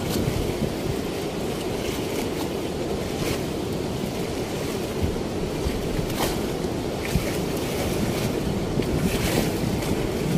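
Steady rush of river water flowing through a weir's sluice gates, with small waves washing against the concrete bank.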